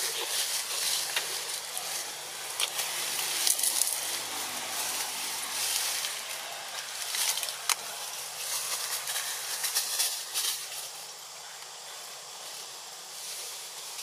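Outdoor ambience: a steady high hiss that swells and fades, with scattered sharp clicks and a faint low hum underneath.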